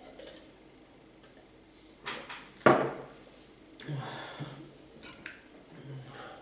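A drinking glass set down on a table with one sharp knock, a little over two and a half seconds in, among quieter handling and swallowing sounds.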